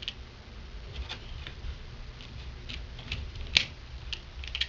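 Small parts of a seatbelt retractor's locking mechanism being handled and fitted together by hand: scattered light clicks and ticks, with one sharper click about three and a half seconds in.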